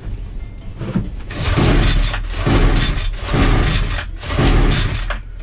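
Recoil pull-starter of a Titan petrol multi-tool being yanked four times, about once a second, each pull a rough rasping burst; the engine does not catch.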